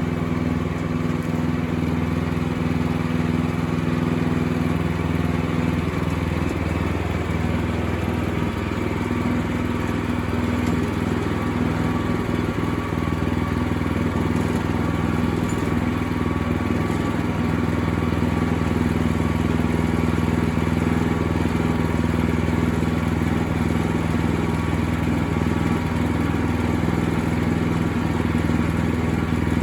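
Sawmill's gasoline engine running steadily, its pitch shifting slightly about seven seconds in.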